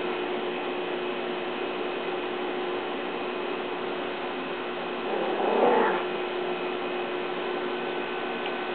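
Mini teacup chihuahua giving one short vocal sound in play, about a second long, around five seconds in. A steady low hum and hiss runs underneath.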